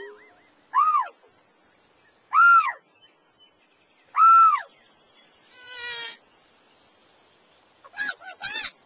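Loud bird-like calls: three separate calls, each rising and then falling in pitch, about a second and a half apart. They are followed by a buzzier call and, near the end, a quick run of chirps.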